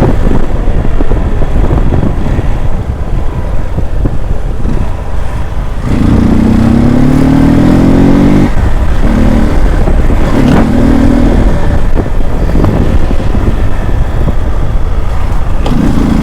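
Hero Xpulse 200's single-cylinder engine running at road speed under heavy wind rush on the microphone. About six seconds in, the engine's pitch climbs steadily for two or three seconds as it accelerates, then drops at a gear change; shorter climbs follow near ten seconds and again at the end.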